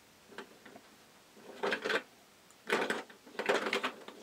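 Hollow plastic toy capsules clacking against each other and the side of a metal pot as a hand digs through them, in a few short bursts of rattling with quiet pauses between.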